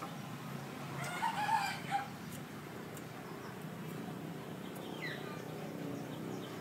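A rooster crowing once, about a second in, over the steady low hum of a wood lathe running. A brief falling chirp near the end.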